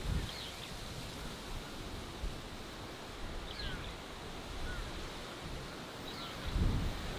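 Outdoor countryside ambience: a steady rushing haze, with a low gust of wind rumbling on the microphone near the end. A bird calls faintly a few times, in short high chirps and little falling notes.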